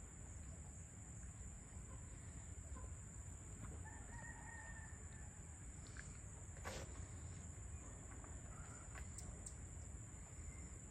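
A rooster crowing once, faint and distant, about four seconds in. Under it runs a steady high-pitched whine and a low outdoor rumble, with one sharp click a little past the middle.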